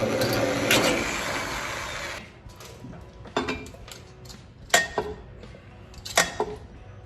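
About two seconds of dense handling noise, then a few sharp metallic clinks spaced over a second apart, as brake-hose fittings and tools are handled.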